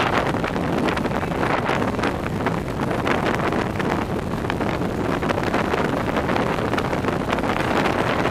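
Wind rushing over the microphone of a camera carried by a cyclist riding a velodrome track: a steady rushing noise with no breaks.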